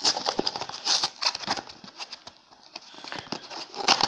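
A small Funko Pop Mystery Minis cardboard blind box being unpacked by hand, rustling and crackling in quick irregular clicks. The handling dies down about two and a half seconds in, then picks up again with a loud crackle near the end.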